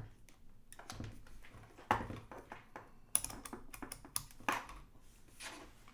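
Irregular plastic clicks and knocks of a multimeter and its test leads being handled and set up, about a dozen sharp taps spread unevenly, a few of them louder.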